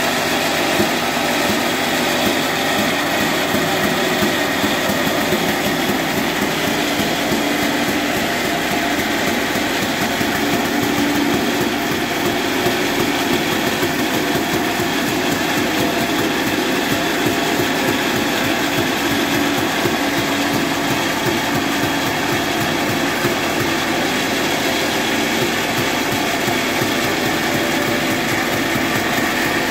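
Old horizontal band sawmill running steadily, its band blade cutting through an oak log: an even, unbroken machine noise with no pauses.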